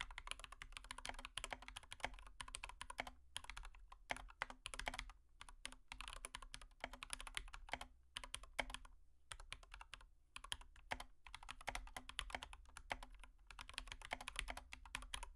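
Rapid, irregular tapping and clicking over a faint steady hum.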